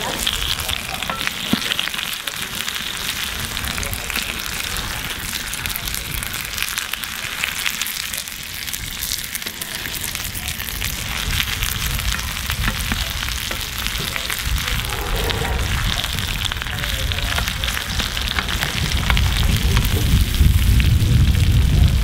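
Breaded chicken pieces sizzling and crackling in hot oil in steel pans on a wood-fired plancha. A low rumble comes in about two-thirds of the way through and grows louder near the end.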